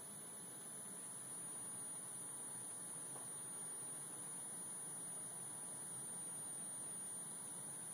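Quiet room tone: a steady hiss with a constant high-pitched whine running through it.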